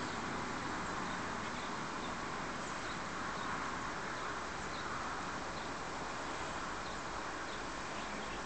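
Steady outdoor background noise, with a few faint, short high chirps scattered through it.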